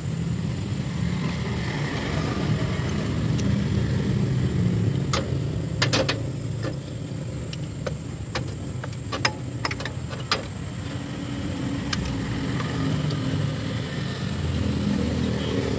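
Isuzu Panther diesel engine idling steadily, with a few sharp metallic clicks in the middle.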